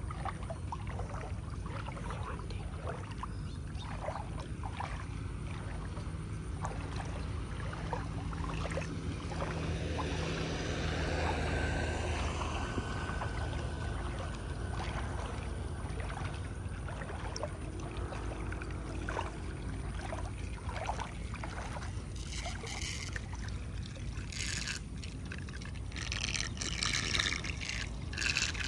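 Shallow muddy floodwater sloshing and splashing as someone wades through it, with louder, more frequent splashes near the end.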